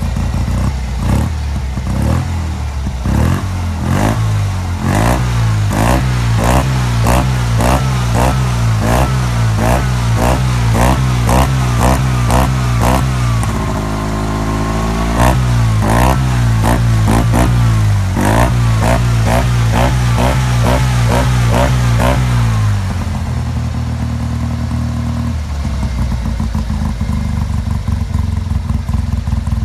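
Tuned 700cc Fiat 500 air-cooled twin-cylinder engine blipped by hand at the carburettor in quick repeated revs, about two a second, with a brief drop in revs about halfway. About three-quarters of the way through it settles to a steady idle. This is the carburation and tuning stage after the engine's first start and running-in.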